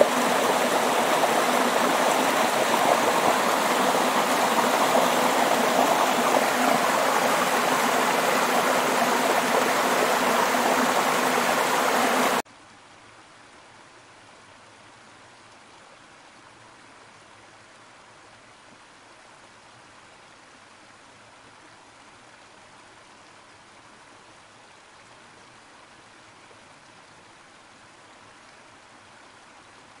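Waterfall: many thin streams of water falling into a pool, a loud, steady splashing rush. About twelve seconds in it cuts off suddenly to a much quieter steady rush of water.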